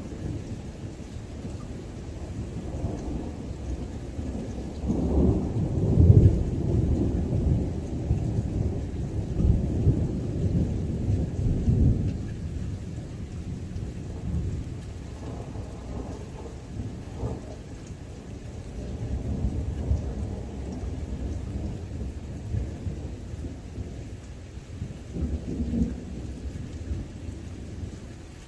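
Thunder from a nearby lightning strike: a long low rumble that swells about five seconds in, is loudest about a second later and rolls on for several seconds. Fainter rolls follow, and another swells near the end.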